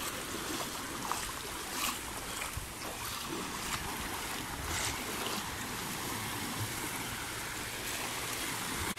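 Small sea waves breaking and washing over a sandy shore in shallow water, a steady wash that swells briefly now and then.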